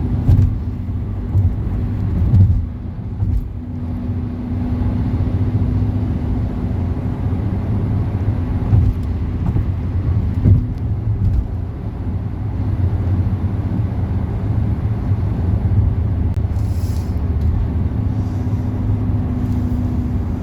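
Steady low rumble of road and engine noise inside a moving car's cabin, with a faint hum that comes and goes and a few light knocks.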